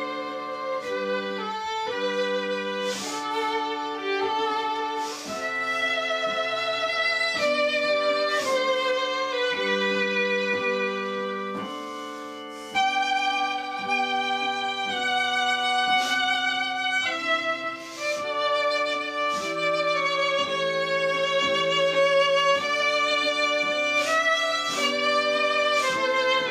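Slow instrumental music: a violin plays a melody with vibrato over held accompanying chords. The music fades briefly about halfway through, then the next phrase comes in.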